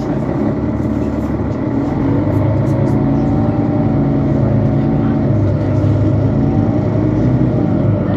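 Mercedes-Benz Citaro C2 city bus's Euro 5 diesel engine pulling under load. Its note rises about two seconds in and holds, with a whining tone that wavers in pitch over it.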